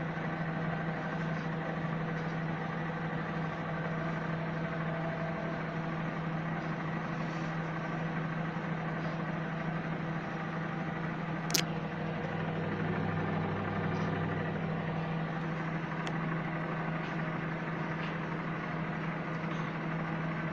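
Microwave oven running: a steady, even hum with a single sharp click about halfway through.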